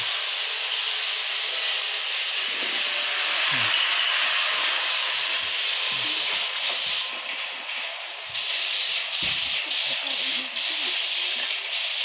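Gravity-feed spray gun hissing as compressed air sprays finish onto a wooden armchair. It runs steadily with short breaks and eases off about seven seconds in before starting up again.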